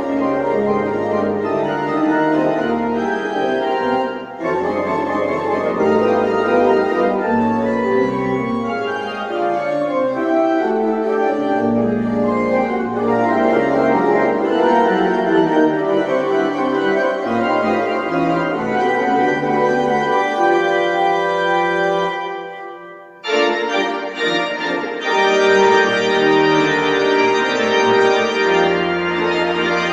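Church organ playing a festive piece in held full chords over sustained low pedal notes. About 23 seconds in, the sound briefly thins and dips, then a fuller, louder chord comes in.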